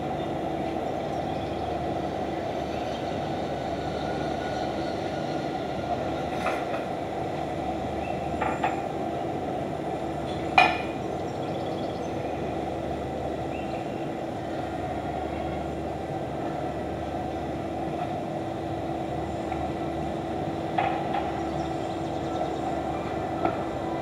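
A steady hum with one constant tone running through it, broken by a few sharp clicks; the loudest click comes about ten and a half seconds in.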